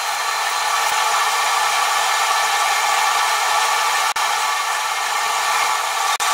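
Square file rasping across a steel strip held in a vise, cutting graduation marks. The footage is sped up, so the strokes run together into a steady high hiss, broken by two brief dropouts about four seconds in and near the end.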